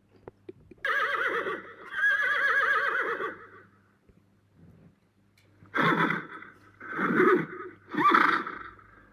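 A horse whinnying: a long, quavering whinny in two parts, then three shorter neighs about a second apart near the end.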